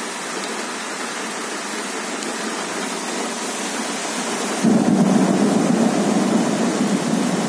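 Heavy rain pouring with a steady hiss. A little over halfway through, a low thunder rumble sets in suddenly, louder than the rain, and keeps rolling.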